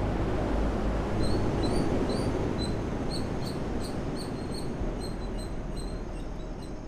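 A small bird chirping repeatedly in short, high notes, about two or three a second, over a steady noisy background.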